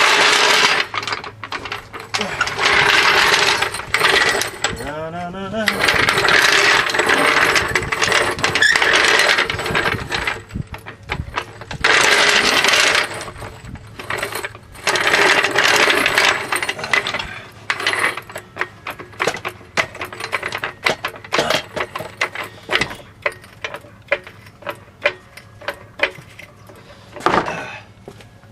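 A jack being worked to raise an SUV's suspension and ease tension on the sway bar: several long stretches of scraping, pumping noise with short pauses between them, then a run of quick light metallic clicks.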